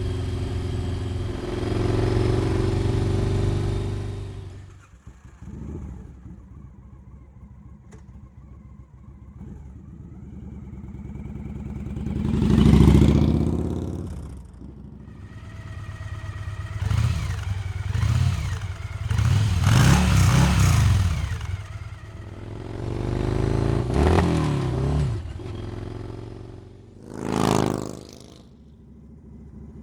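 2004 Victory Vegas motorcycle's V-twin engine: running steadily under way for a few seconds, then dropping to idle. It pulls away in first gear with a rising rev, then gives a series of throttle revs, the last a short, sharp one near the end.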